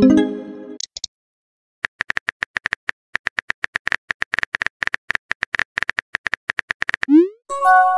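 Phone texting-app sound effects. A message-received chime opens it and fades over about a second. Rapid on-screen keyboard tapping clicks follow from about two seconds in, then near the end a rising swoosh and a short message-sent chime.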